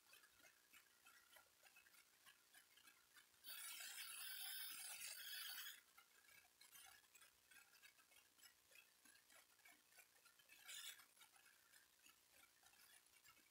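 Near silence: room tone with faint, rapid ticking, and a brief hiss that lasts about two seconds a few seconds in and returns once, more briefly, near the end.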